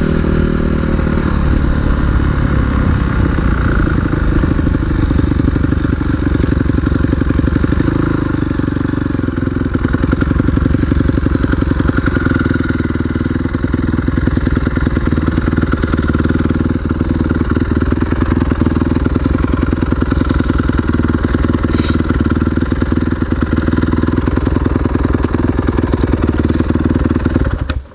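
Single-cylinder off-road motorcycle engine running steadily, its pitch shifting a little a second in and again about eight seconds in.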